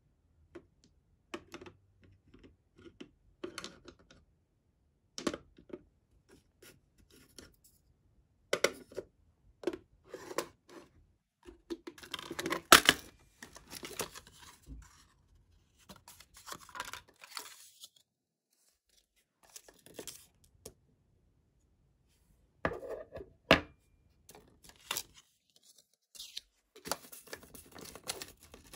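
Small items being handled in a clear acrylic drawer organizer: scattered clicks, taps and rustles of glass bottles, plastic and metal jewelry, with quiet gaps between. Two sharper knocks stand out, one about halfway through and one later on.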